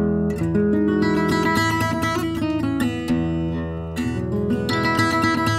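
Acoustic guitar playing: strummed chords mixed with picked melody notes, the chord changing a few times.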